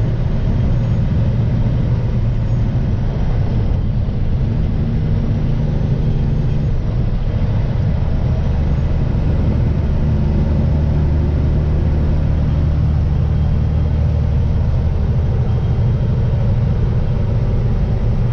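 Steady drone of a vehicle's engine and tyres on the road, heard from inside the cab, with a deeper hum coming up about eight seconds in.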